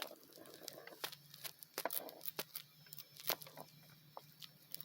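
Irregular sharp clicks and snaps, several a second, from a plastic fidget toy worked in the hands, over a faint steady low hum.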